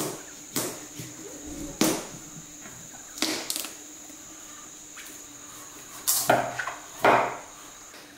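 About half a dozen sharp cracks and crunches at uneven intervals, like something hard and woody splitting, over a steady high insect drone.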